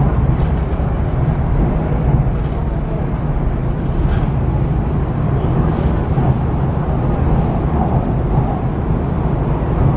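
MTR East Rail Line R-train electric multiple unit running steadily between stations, heard from on board: a steady low rumble of wheels on track and traction equipment, with a few faint clicks near the middle.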